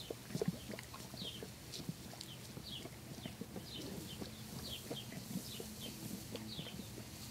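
A horse licking and slurping at a thin stream of water from a garden hose: irregular wet smacking and lapping clicks, the strongest about half a second in, over a faint hiss of spraying water. Repeated short high falling chirps sound throughout.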